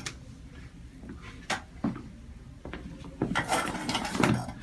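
A few scattered light clicks and knocks, with a louder cluster near the end.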